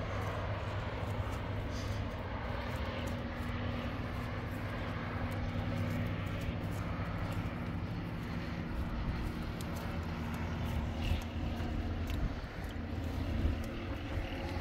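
Steady low engine hum of distant vehicle traffic, with a few faint steady tones in it.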